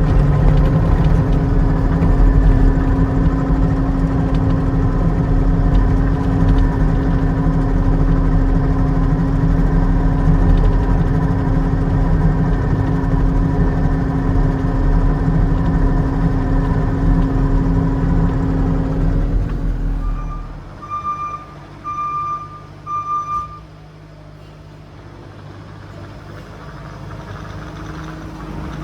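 Case TR310B compact track loader's diesel engine running steadily and loud. About two-thirds of the way through the sound drops away abruptly, four short high beeps follow, and then a quieter low engine hum slowly builds.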